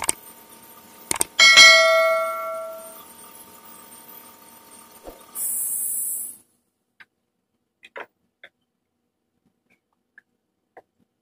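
Subscribe-button sound effect: a couple of mouse clicks, then a bell ding that rings out and fades over about a second and a half. About five seconds in, a short high hiss lasts about a second, then only a few faint clicks.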